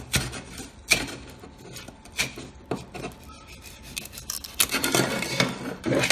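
A 3D-printed plastic part being scraped and knocked off a glass print bed: irregular sharp clicks and taps with scraping between them, coming thicker in the last two seconds or so.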